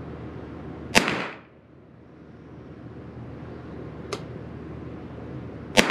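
Two shots from a Derya TM22 .22 LR semi-automatic rifle firing subsonic rounds with heavy bullets, about five seconds apart, each a sharp crack with a short echo. A faint click comes between them.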